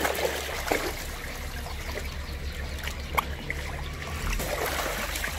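Pond water sloshing and splashing around a person wading chest-deep and grabbing a large fish, with a few short sharp splashes.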